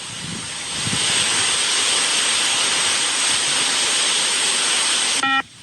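A steady hiss builds over the first second and runs on until it cuts off suddenly near the end. It is followed by one short electronic beep from the multi-stage fitness (beep) test recording, marking the end of a shuttle just before the next level call.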